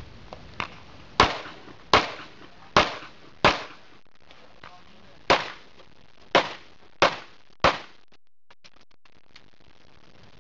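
Pistol shots fired on a practical-shooting stage: four shots about 0.7 s apart, a pause of about two seconds, then four more at the same pace. A few faint ticks follow.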